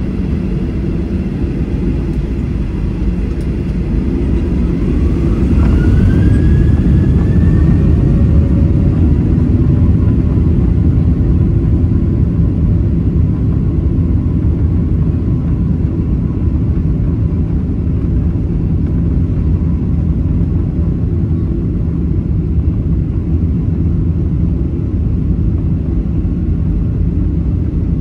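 Cabin sound of a Boeing 737-900ER taxiing, its CFM56-7B engines running at low power with a steady low rumble. About five seconds in a whine rises in pitch and the sound grows a little louder, then holds steady.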